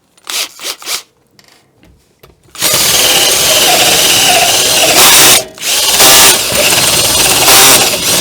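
A few light handling knocks, then a power drill spins up a hole saw and cuts into the steel door about two and a half seconds in, a loud, steady grinding that briefly drops out near the middle before the cut goes on.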